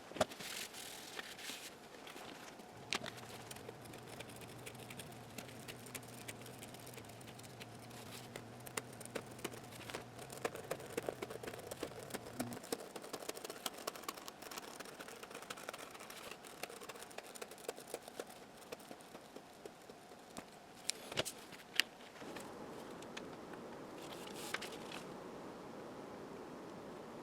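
Small workbench handling noises of tracing and working felt on a speaker base: scratching, rustling and light clicks and taps. A steady low hum runs from about three seconds in until about halfway through, and two sharper clicks come near the end.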